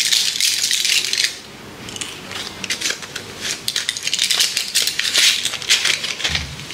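Plastic blister pack of tablets and its cardboard box being handled. It crinkles and rustles for about the first second, then gives a run of quick small clicks and crackles.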